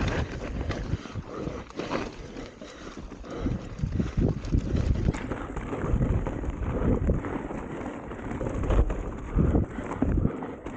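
Mountain bike being ridden over rough trail: wind buffeting the camera microphone, with a rumble and irregular knocks and rattles from the tyres and bike over bumpy ground.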